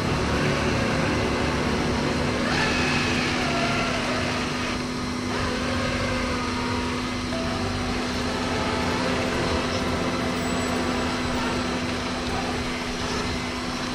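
Electric motor and geared drivetrain of an RC rock crawler running as it crawls over rubble and dry stalks, picked up by the camera mounted on the car itself: a steady hum under a noisy whir, with faint wavering whines as the throttle changes.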